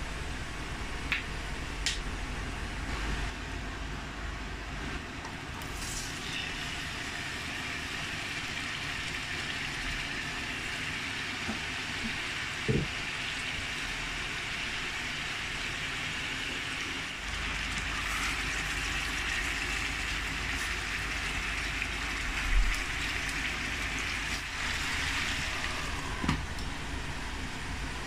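Potato slices frying in hot oil in a pan on a portable gas stove: a steady sizzle, with a few light knocks.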